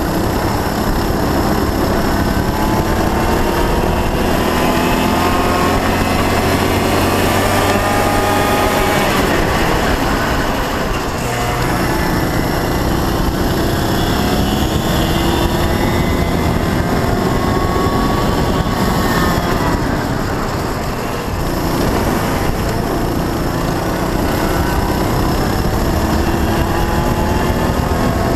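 Honda Cadet kart's single-cylinder four-stroke engine at racing speed, heard onboard: the revs climb along the straights and fall away into the corners, with dips about ten and twenty-one seconds in. Wind and road noise rush steadily underneath.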